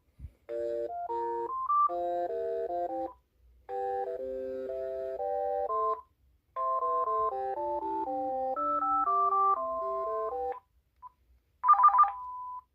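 A Uniden DCT648-3 cordless handset playing a melodic ringtone: a chiming tune of several notes at once, in three phrases with short pauses between them, then a short beep near the end.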